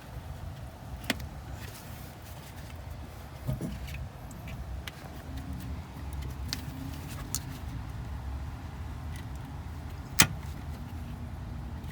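Scattered clicks and knocks of tools and parts being handled during engine-bay reassembly, with one sharp click about ten seconds in the loudest, over a steady low rumble.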